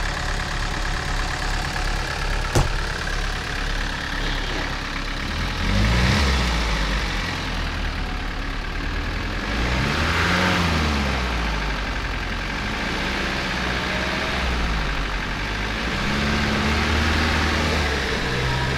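SUV engine running in deep snow, revving up and dropping back about four times. A single sharp knock comes about two and a half seconds in.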